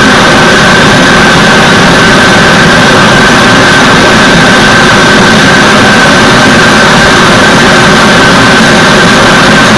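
Gas forge burner running: a loud, steady rush of burning gas with a constant high whistling tone.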